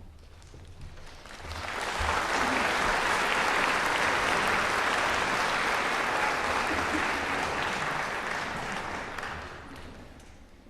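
Audience applauding. The applause swells up about a second and a half in, holds steady, then dies away near the end.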